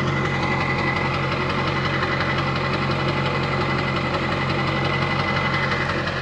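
A truck engine idling steadily: the Ford F550 tow truck's engine running at a constant idle.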